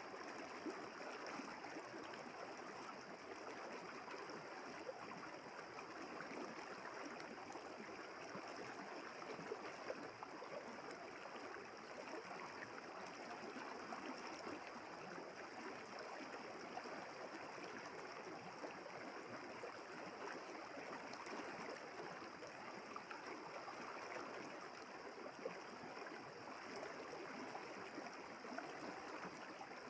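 River water flowing steadily, with small gurgles and splashes scattered through an even rushing sound.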